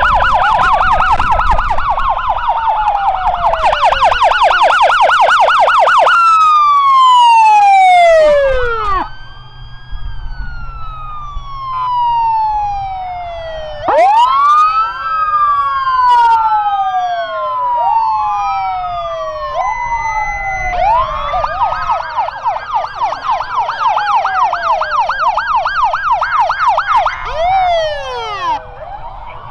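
Sirens of several emergency vehicles passing in succession: a fast yelp, then overlapping slow wails rising and falling, then a fast yelp again near the end. A brief steady tone sounds about twenty seconds in, with a low engine rumble underneath.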